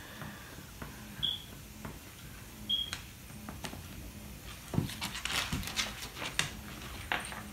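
Puppy giving two brief high-pitched squeaks about a second and a half apart, then a run of scuffling and sharp clicks of dog claws and bodies moving on a hardwood floor as the puppy and an older dog play.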